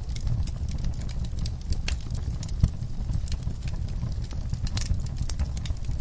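Wood fire burning in an outdoor firepit, crackling with irregular sharp snaps and pops over a steady low rumble; one louder pop about two and a half seconds in.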